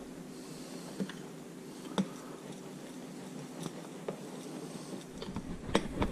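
Metal utensil stirring a fizzing ginger-ale batter in a ceramic bowl: soft scraping with a few sharp clicks of the utensil against the bowl, the loudest about two seconds in and a quick cluster near the end.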